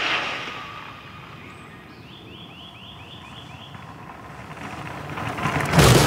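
A rushing swell fades away, leaving quiet woodland air in which a songbird sings a quick run of about seven repeated notes. A rush then builds and breaks, just before the end, into loud rattling and rumbling as a road bike comes over the cobblestones, with drum-backed music starting at the same moment.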